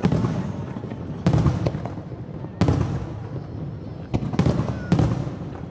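Aerial fireworks shells bursting overhead: about five loud booms, roughly a second apart, with two close together near the end. Each boom trails off in a rolling, rumbling echo.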